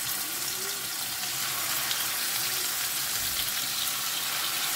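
Chicken pieces sizzling as they fry in hot oil in a pan: a steady hiss.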